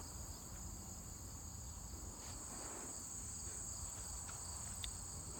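Insects chirring in a steady high-pitched drone, over a low rumble with a few faint ticks.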